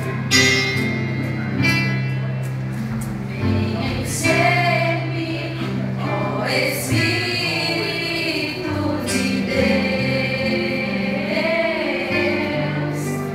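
Gospel praise song: women's voices singing over a steady instrumental backing, the singing coming in about four seconds in after a few strummed chords.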